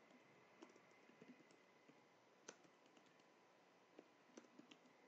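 Faint computer keyboard keystrokes, typed in short irregular runs of a few clicks, over a very quiet background with a faint steady high tone.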